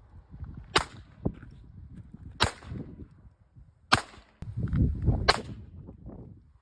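Four single gunshots at an outdoor range, spaced about a second and a half apart.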